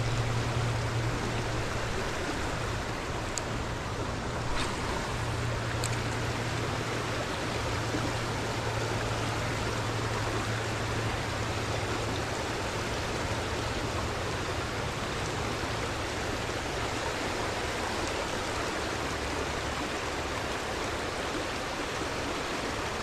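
Creek water rushing steadily over rocks in a shallow riffle, with a low rumble under it for the first half.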